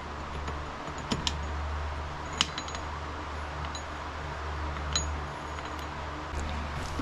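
A few light metallic clicks and clinks, spaced seconds apart, as the cam chain and its parts are fitted onto the Suzuki DR200's crankshaft, over a steady low hum.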